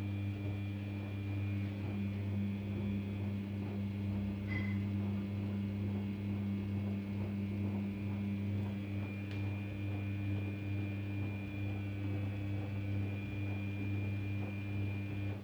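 Daewoo DWD-FT1013 washing machine running with a steady low hum and faint ticking, which cuts off suddenly at the end.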